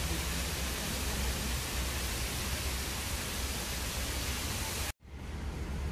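Steady rush of running water, an even hiss that cuts off abruptly about five seconds in and returns as a quieter hiss.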